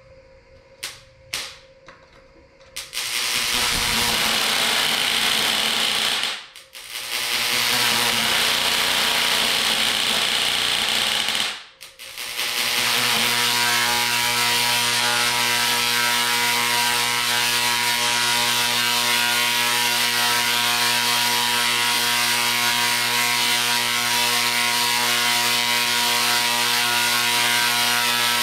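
Synchronous rotary spark gap Tesla coil firing and throwing arcs: a couple of pops, then a loud rasping crackle that cuts out twice, choppy while the spark gap is still out of tune. From about halfway through it settles into a steady, even-pitched buzz as the gap's timing comes into tune.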